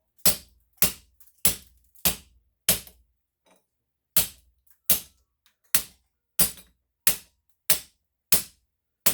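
Hammer blows on the end of a fitting in a water heater's gas valve: about a dozen sharp metal strikes, roughly one every two-thirds of a second with a short pause after the fifth, each with a brief ring. The blows are meant to knock the piece out of the valve body.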